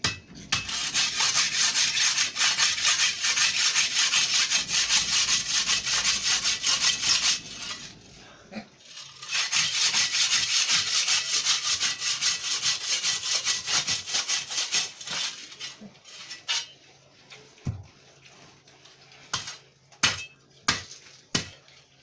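Rapid rasping strokes of a block being sawn by hand, in two long runs of about seven and six seconds, followed by a few scattered knocks.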